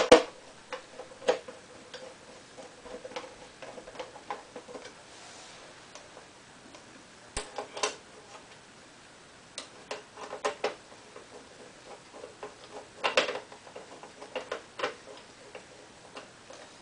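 Irregular light clicks and ticks of a hand screwdriver tightening the four VESA mounting screws that hold a monitor to a metal stand arm, with a few louder clusters of clicking around the middle and near the end.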